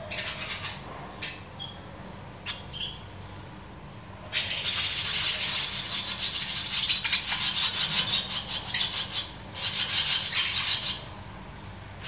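Barn swallow nestlings begging: a few short high chirps, then about four seconds in a loud, dense burst of rapid high twittering that lasts some seven seconds, the chicks' begging as a parent comes to the mud nest to feed them.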